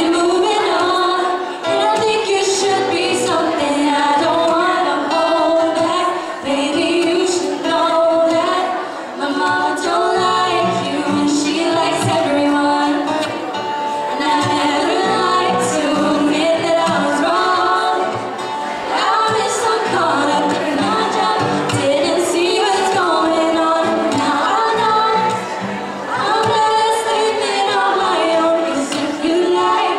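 Young women singing a pop song together into microphones, accompanied by a strummed acoustic guitar.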